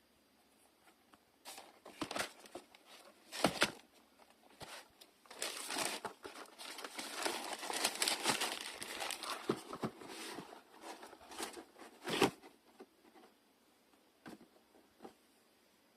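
Packaging being crumpled and handled: scattered rustles, a longer stretch of crinkling from about five to twelve seconds in, and a couple of sharper knocks.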